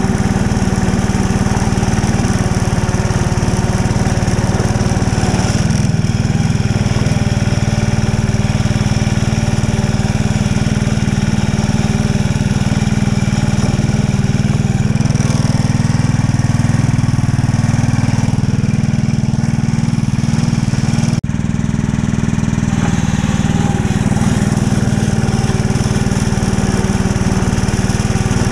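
Small engine of a ride-on backyard-railway locomotive running steadily as it hauls along snow-covered track. The sound cuts out for an instant about three-quarters of the way through.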